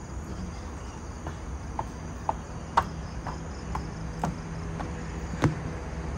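Footsteps on a raised walkway, short hard clicks about two a second, over a steady high drone of insects.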